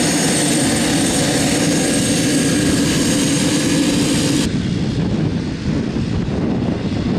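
Pilatus PC-12's PT6A turboprop engine and propeller running steadily as the plane taxis, with a thin high turbine whine over the drone. About four and a half seconds in, the sound changes abruptly to a duller, more muffled engine noise.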